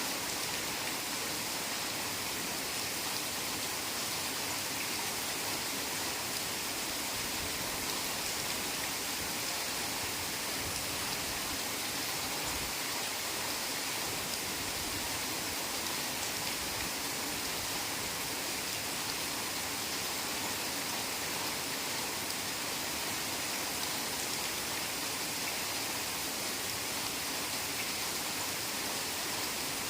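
Heavy rain falling steadily in a forest: an even, unbroken hiss with no single drops standing out.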